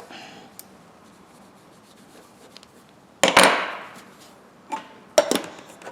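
Handling noise from waxing a pair of steel pliers: a sharp knock about three seconds in that trails off into a rubbing scrape lasting about a second, then a few lighter knocks near the end.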